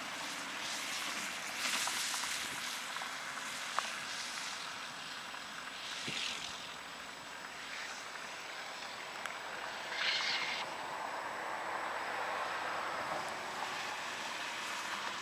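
Storm wind rushing steadily, with brief gusts swelling about two, six and ten seconds in.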